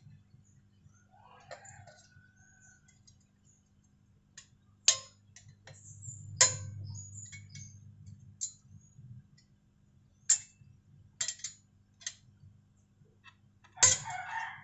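Sharp metallic clicks and clinks from pliers and a steel exhaust spring as the spring is worked onto the hooks between a slip-on muffler and the motorcycle's link pipe, several separate clicks a second or more apart. A rooster crows near the end.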